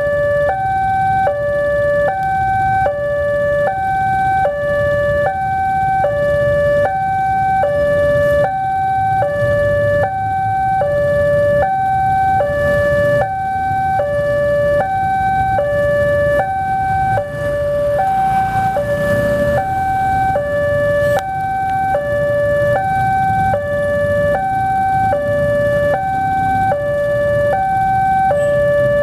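Railway level-crossing warning alarm sounding, signalling that a train is approaching: an electronic two-tone signal alternating steadily between a higher and a lower tone, each held about half a second, over a low traffic rumble.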